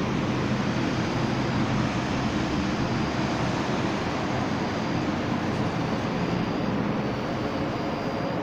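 Steady outdoor background noise: an even low rumble and hiss with no distinct event, and a faint thin high tone that comes and goes.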